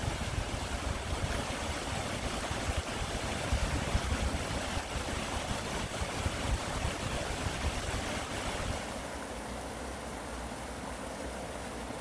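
Mountain stream flowing over rocks: a steady rushing hiss of water. About nine seconds in it becomes quieter and duller.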